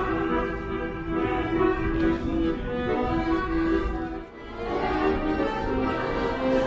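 String music, violin and cello playing long held notes, with a short lull about four seconds in.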